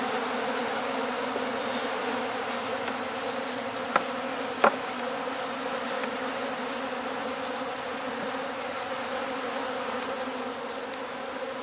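Honeybees buzzing in a steady hum around an open hive box. Two sharp knocks about half a second apart, roughly four seconds in, as the wooden frames are handled.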